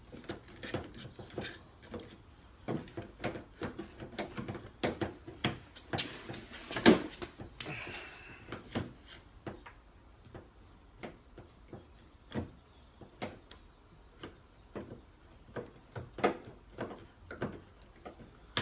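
Irregular clicks, knocks and rattles of a Nissan 350Z's exterior door handle being wiggled and worked out of the driver's door, where the lock mechanism makes it hard to free. The loudest knock comes about seven seconds in.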